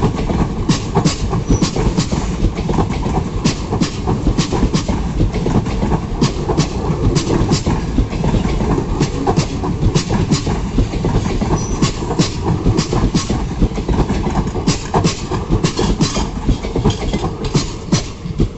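Passenger train coaches running past close by, a steady heavy rumble with rapid, irregular clacking of wheels over rail joints.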